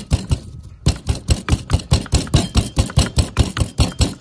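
Wooden pestle pounding in a small wooden mortar, crushing food with quick, regular strikes, about five a second, with a brief pause just under a second in.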